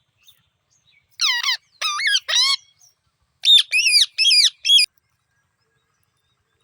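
Alexandrine parakeet (pahadi tota) calling: three loud, harsh squawks, then after a short pause a quicker run of several more, each call rising and then dropping in pitch.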